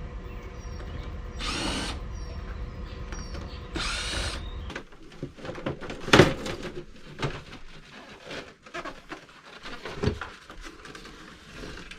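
Cordless drill run in two short bursts over a steady low hum. The hum stops about five seconds in, giving way to scattered knocks and clicks of handling, with a sharp knock about six seconds in and another near ten seconds.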